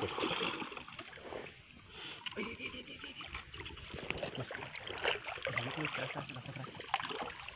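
Shallow river water sloshing and splashing as hands grope under a boulder and a two-pole hand net is worked through the water, with scattered small splashes.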